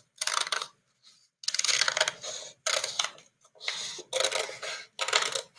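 Scissors cutting through folded paper, a crackling run of snips in about five stretches with short pauses between them.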